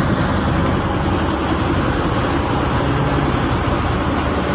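Fishing boat's engine running steadily under way, a constant low drone with the hiss of water and wind over it.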